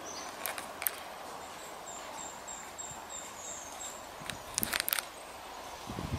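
Faint outdoor ambience with a high, thin chirp repeated about three times a second for a couple of seconds, and a few sharp clicks near the end.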